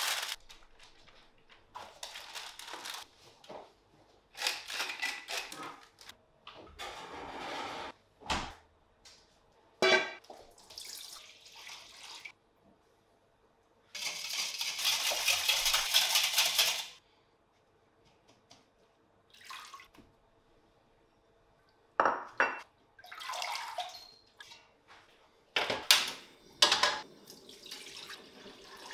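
A run of kitchen prep sounds: parchment paper crinkling as it is pressed into a cast-iron grill pan, then liquid stirred briskly in a stainless steel bowl for about three seconds, the loudest part, and near the end water poured from a small steel jug into a stainless steel wok, with clinks of metal utensils between them.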